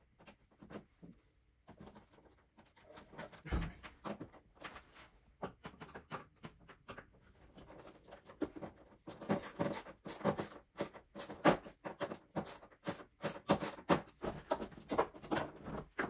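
Hands working with small metal hardware and a plastic case: a run of irregular clicks, knocks and light rattles that comes quicker and louder about nine seconds in.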